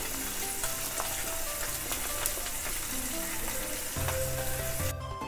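Oil sizzling as food fries in a pan: a steady hiss peppered with many small pops, which cuts off abruptly just before the end. Soft background music runs underneath, with low bass notes coming in near the end.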